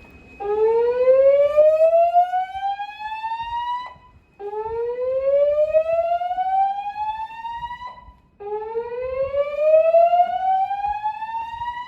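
Gentex fire alarm speaker strobes on a Notifier NFS2-640 voice evacuation system sounding the slow whoop alarm tone. There are three whoops, each rising steadily in pitch for about three and a half seconds, with a short break between them.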